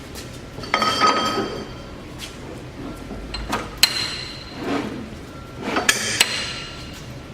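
Metal parts knocking and clanking with a brief ringing after each knock, in three groups: about a second in, around four seconds and around six seconds. This is typical of the steel parts of a horizontal band saw being handled or adjusted.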